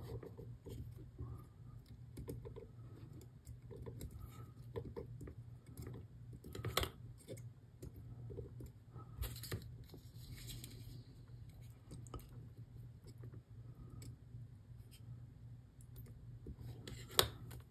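Faint small clicks and taps from handling a soldering iron and a rail joiner clamped in a small metal vise, with two sharper clicks about seven seconds in and near the end, over a steady low hum.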